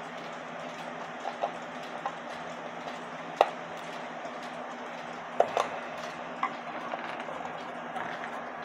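Scattered light clicks and knocks as a screwdriver and hands work at the screws holding the movement inside a wooden cuckoo clock case. The sharpest knock comes a little past a third of the way in, with a few more about two thirds in, over a steady low background hum.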